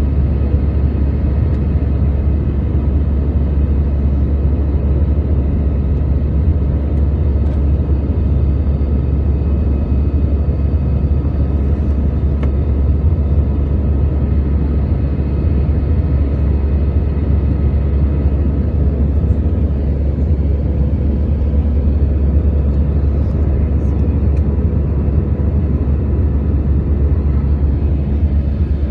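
Airbus A320 cabin noise in the climb after takeoff: the engines and the airflow make a steady, loud low rumble, with a few faint steady tones running above it.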